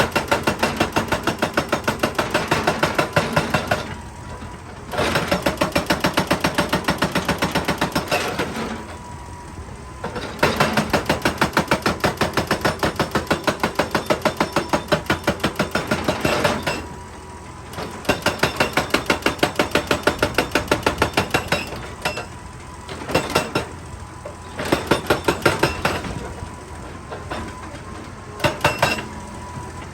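Excavator-mounted hydraulic rock breaker hammering rock in rapid, evenly spaced blows. It runs in bursts of several seconds with short pauses between them, and the bursts grow shorter and choppier in the last third.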